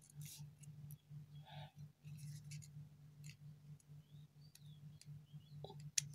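Faint clicks of a plastic USB card reader being handled in a phone's micro USB port, over a low steady hum, with one sharper click near the end.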